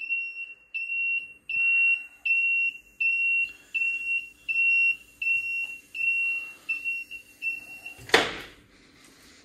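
A car lift's electronic warning beeper sounds a steady run of high-pitched beeps, about one every three-quarters of a second, as the lift is lowered. The beeping stops about eight seconds in and is followed by a single heavy thump.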